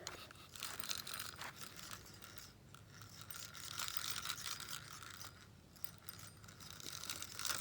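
Push-button spincast fishing reel being cranked to retrieve line, its gears giving a steady mechanical clicking whir.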